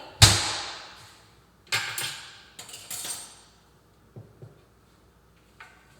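Kitchenware being handled on a counter: a sharp clatter about a quarter second in that rings briefly, a second knock near two seconds, then lighter knocks and a couple of faint taps.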